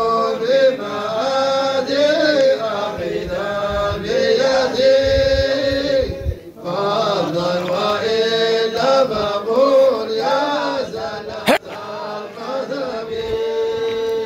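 Background music of chanted singing in phrases broken by long held notes, with a brief pause about halfway through and a single sharp click later on.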